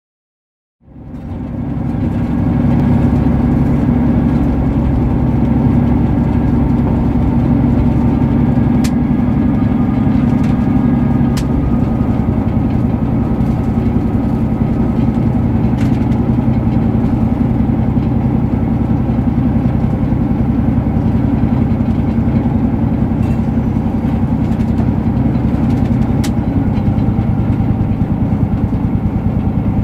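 Diesel locomotive engine running steadily at low revs as the locomotive rolls slowly along the track, fading in about a second in. A few sharp clicks sound over the engine.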